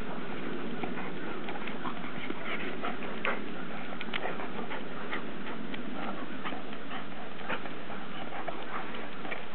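A standard poodle and a Newfoundland play-wrestling: steady scuffling and breathing, with many light clicks and knocks scattered throughout.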